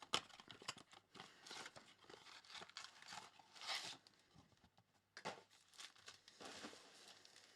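Plastic wrapping on trading-card blaster boxes and packs being torn open and crinkled, a run of soft rustles with a few sharper rips.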